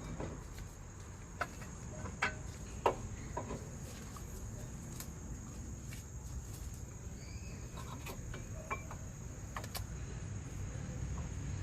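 Scattered light clicks and knocks from handling the brake caliper and pads while fitting the caliper back over new front brake pads, over a steady faint high-pitched whine.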